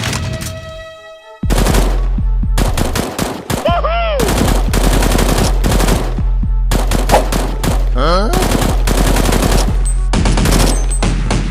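Rapid automatic gunfire sound effects, a sustained burst of shots that starts suddenly a little over a second in after a short fade of music. There are whistling pitch glides, like ricochets, about four seconds in and again about eight seconds in.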